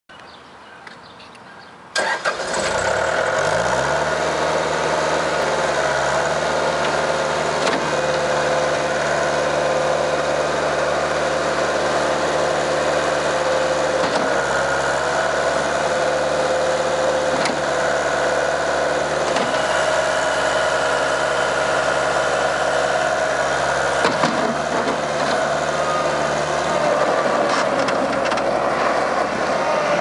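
Bobcat 863 skid steer loader's diesel engine starting about two seconds in, climbing in pitch and settling into a steady run. It keeps running as the loader drives and lifts its bucket, the engine note shifting a few times under load.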